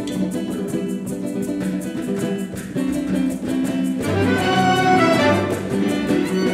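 Symphony orchestra playing a calypso piece live: bowed strings hold sustained chords over a steady rhythmic pulse. The playing grows fuller and louder, with low notes entering, about four seconds in.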